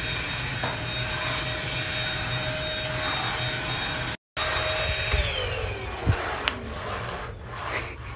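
A household electric motor, like a vacuum cleaner's, running with a steady whine. A little after halfway it is switched off and spins down, its whine falling in pitch. A few knocks follow near the end.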